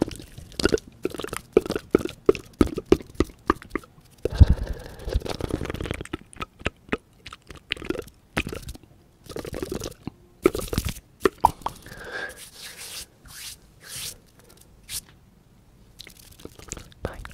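Rapid close-miked mouth sounds: tongue flutters, wet clicks and pops, with fingers flicked across the lips. They come in quick irregular runs broken by short pauses, and go quiet for a moment near the end.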